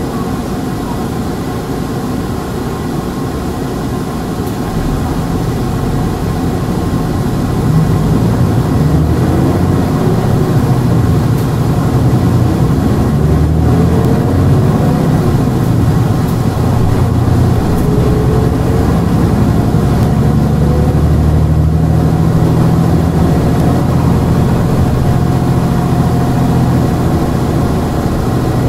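Hankyu Bus No. 383, a diesel non-step city bus, running: its engine is steady at first, then louder from about seven seconds in as it works harder. Its note rises and falls through the middle.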